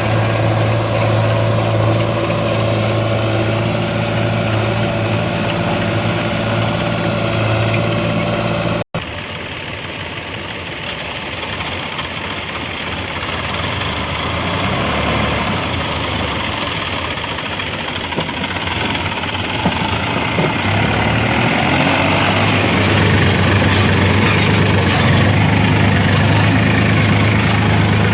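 Heavy diesel machine's engine running at a steady speed. About nine seconds in, the sound cuts abruptly to a quieter, rougher engine that grows louder and steadier again over the last several seconds.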